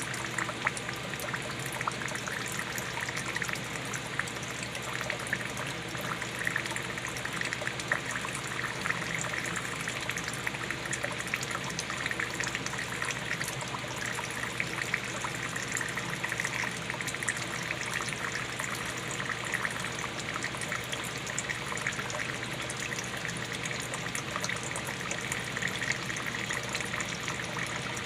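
Water pouring in a steady stream, splashing continuously without a break.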